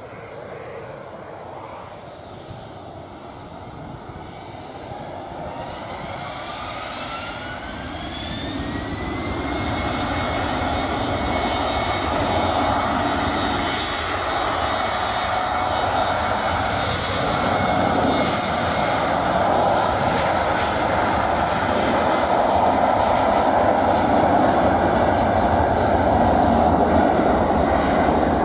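Embraer E190's twin CF34 turbofans spooling up to takeoff thrust: a whine that rises for several seconds, then settles into a steady high tone as the roar of the jets grows louder.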